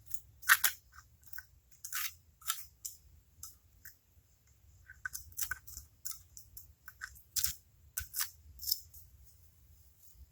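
Small flathead screwdriver scraping packed dirt and grime from around the valve cover bolts of an old V8 engine: short, irregular scratching strokes, with a pause in the middle.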